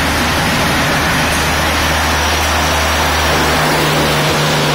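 LHB coaches of an express train rolling past a station platform: a loud, steady rush of wheels on rail with a low hum underneath.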